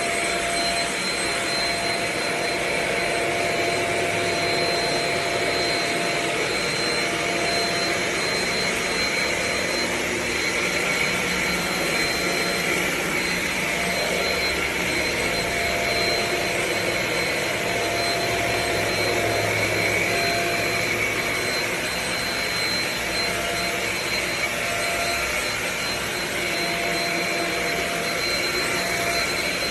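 Shark Rocket HV343AMZ corded stick vacuum running steadily: an even rush of air with a thin, steady high whine.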